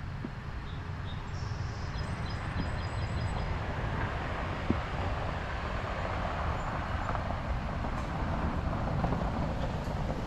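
A motor vehicle running: a steady low rumble with road and wind noise building up, and a few faint high chirps in the first few seconds.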